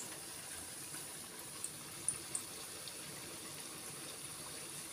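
Hot oil in an electric deep fryer hissing steadily, with a few small pops and crackles.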